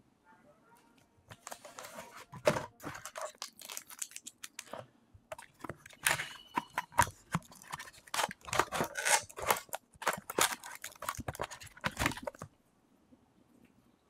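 Unboxing handling noise: cardboard packaging and plastic wrap crinkling and rustling, with sharp clicks and taps, as a trackball and its coiled USB cable are handled and lifted out of the box. It starts about a second in and stops a little before the end.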